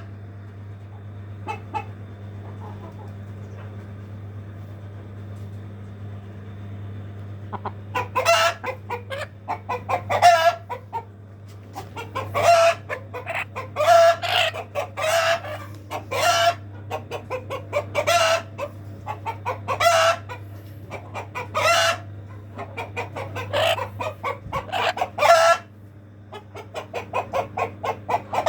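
Chickens clucking and calling. After a quiet start, short loud calls come again and again, one every second or two, over a steady low hum.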